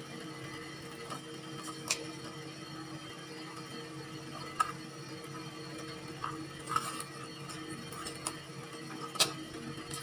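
Scattered sharp clicks of metal tongs and a knife knocking together and against the plate while a whole fried chicken is cut apart, over a steady low hum.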